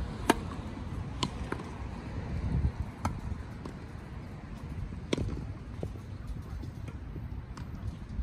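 Tennis rackets hitting the ball in a rally: a serve struck about a third of a second in, then sharp hits at roughly one, three and five seconds, over a low steady rumble.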